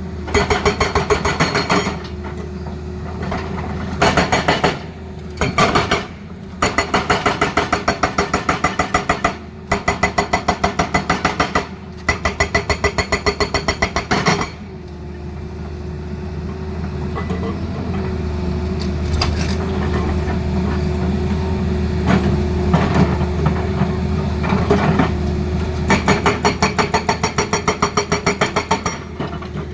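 Excavator-mounted hydraulic breaker hammering in rapid, evenly spaced blows, in several bursts with short breaks, over the steady drone of the Tata Hitachi excavator's engine. The hammering stops about halfway through, leaving the engine running, and starts again near the end.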